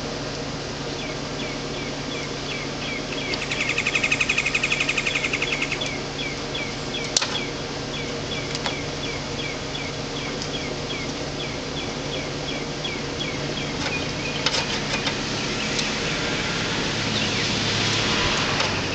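Outdoor ambience over a steady hum: a short chirp repeats about twice a second, with a louder rapid buzzing trill about four seconds in. A few sharp clicks of hand tools follow later as wire strippers work an electrical wire.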